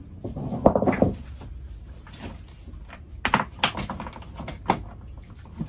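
A muffled rustle, then three or four sharp knocks and clatters spread over a couple of seconds.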